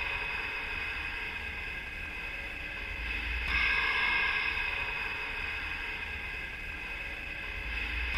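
A steady, heavily processed electronic drone of several held tones over a hiss and a low hum, swelling louder about every four seconds.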